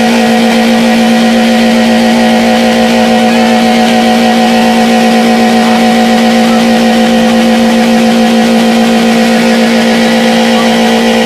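Car engine held wide open at constant high revs, a loud steady drone that does not change pitch: the engine is being run flat out to destruction.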